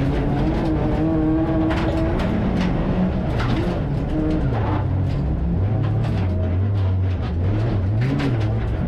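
Rallycross car's engine heard from inside the cabin, its revs falling in steps from about two seconds in as the car slows, then wavering low. Many sharp clicks of gravel striking the car's body and underside throughout.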